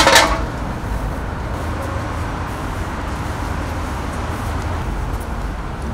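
A metal drink can hits the concrete floor with a brief, loud clatter at the start. A steady low rumble of traffic noise follows.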